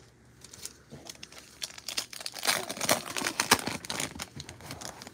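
Foil wrapper of a trading-card pack crinkling while the cards are handled: a stretch of dense crackling that starts about a second and a half in and dies away just before the end.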